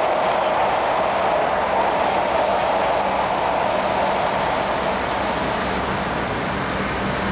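Steady rush of water spray from a drive-through heavy-duty truck wash, with a low engine hum from the truck underneath that grows a little stronger about three seconds in.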